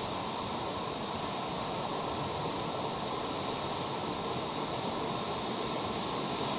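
Steady, even hiss of background noise with no distinct calls or sneezes.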